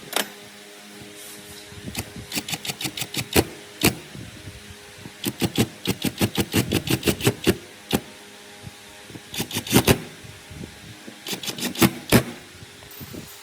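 Runs of sharp taps or knocks, about five or six a second, in four bursts separated by short pauses.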